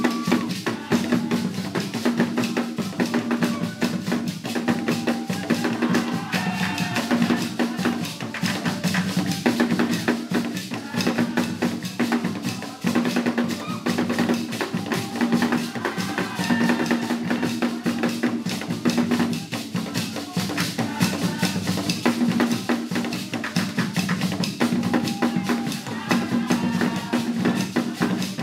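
Drumming for a traditional dance: several drums playing a fast, dense, unbroken rhythm, with faint voices over it.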